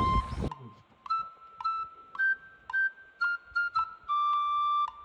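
Light background music: a simple melody of short high notes, with one longer held note about four seconds in. A noisy backdrop under the music cuts off about half a second in.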